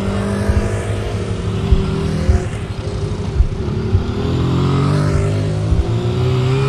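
Small 125cc motorcycles and a scooter riding past one after another, their single-cylinder-class engines pulling away; from about the middle on, engine notes rise as the later bikes accelerate past.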